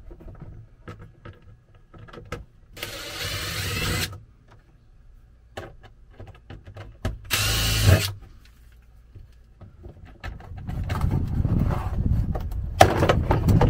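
A cordless drill-driver runs in two short bursts, about three seconds in and again near eight seconds, with light clicks of handling between them. From about ten seconds on, a low rumble builds and becomes the loudest sound.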